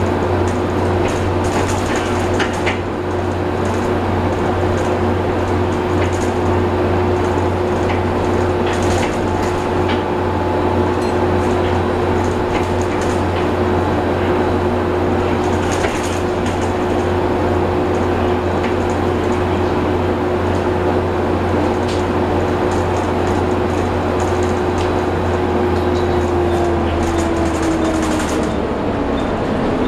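Interior of a Plaxton President double-decker bus on the move: a steady engine drone under a loud, even whine from the cooling fan, with light rattles from the body. Near the end the whine falls in pitch and the drone drops away.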